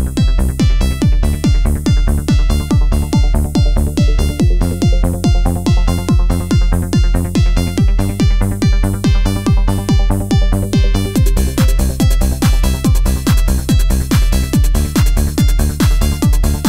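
Electronic dance music with a steady driving beat, about two beats a second; a brighter, denser layer comes in about eleven seconds in.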